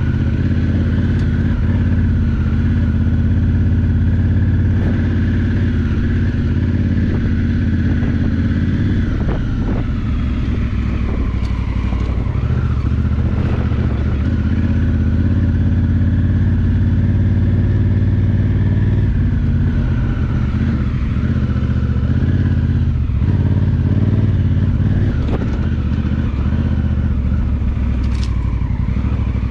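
2018 Honda Africa Twin Adventure Sports DCT's parallel-twin engine running steadily on a dirt track, its note changing a few times as the speed changes, with occasional short knocks.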